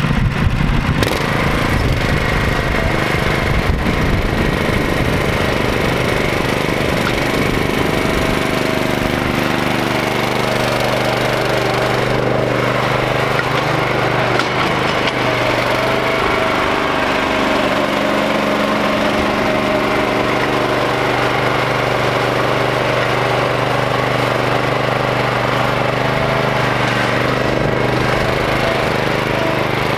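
Gravely Pro-QXT walk-behind tractor's gasoline engine running steadily under load as it drives a front brush-cutter deck across grass, with a rougher low rumble in the first several seconds.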